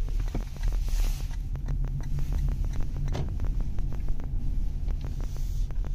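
Steady low rumble of a 2023 Toyota Mirai fuel-cell electric car being driven, heard from inside the cabin, with no engine note. Many short, sharp clicks and ticks come at irregular intervals throughout.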